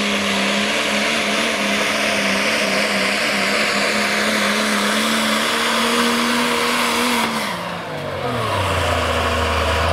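Dodge Ram pulling truck's turbocharged Cummins diesel engine running at full throttle while it drags a weight-transfer sled. The engine note holds steady, then drops in pitch about seven seconds in as the sled's load pulls the engine speed down.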